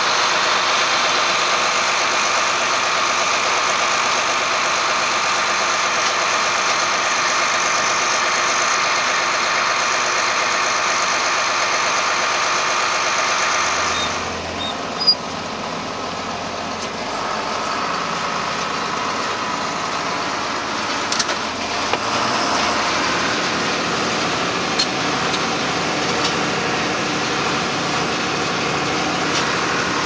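Farm tractor engine running steadily beside a grain wagon; about halfway through, a John Deere combine running as it harvests corn takes over, with one sharp knock just after the change.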